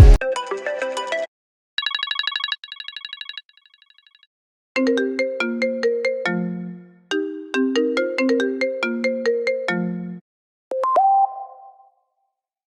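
iPhone ringtones previewed one after another: about seven short electronic melodies and pulsing tone patterns, several stopping abruptly with brief silences between them.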